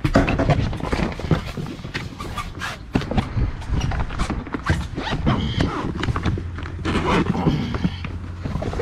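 Irregular knocks, thumps and rustling from footsteps and handling on a fishing boat's deck, with a steady low hum underneath.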